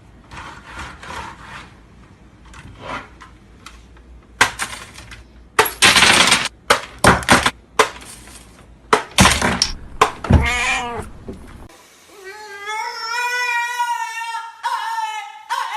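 A series of knocks and crashes with a short animal cry, then, after a cut, a dog whining in long, wavering high-pitched cries, upset at being put in a bath.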